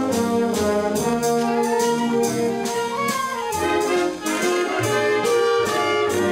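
Orchestra playing with the brass to the fore, over a steady beat.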